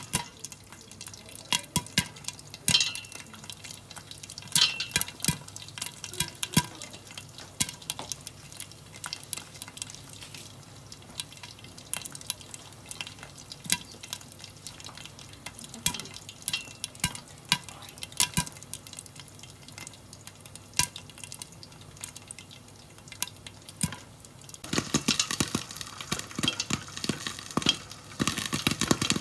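Corn kernels popping in hot oil and butter in a covered pan: scattered sharp pops over a faint sizzle, turning into a rapid, dense run of pops about 25 seconds in.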